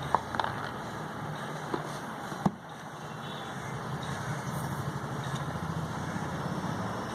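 Steady low, pulsing mechanical rumble like an idling engine, with a few sharp clicks in the first two and a half seconds, the loudest about two and a half seconds in.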